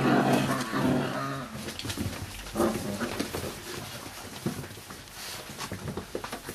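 Five-week-old bandog puppies vocalizing: one held call in the first second and a half, then scattered short yelps among small clicks and shuffling.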